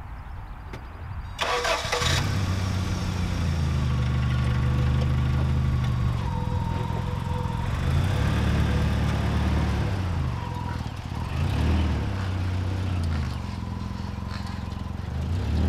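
Toyota Van's four-cylinder engine cranked over by the starter and catching about two seconds in, then running steadily, with the revs rising and falling twice as the van pulls away.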